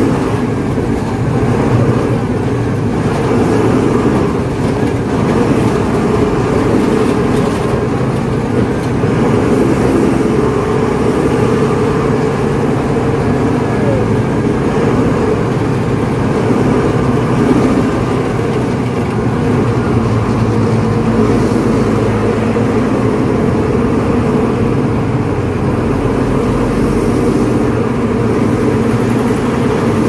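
Steady drone of a heavy vehicle's engine and tyre noise, heard from inside the driver's cab while cruising.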